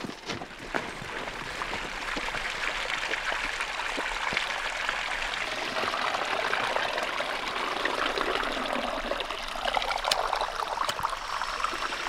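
Water from a spring trickling and pouring steadily, with a few light knocks over it.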